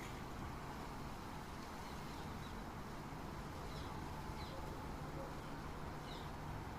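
A few short bird chirps, scattered a second or so apart, over a steady hum of outdoor city background noise.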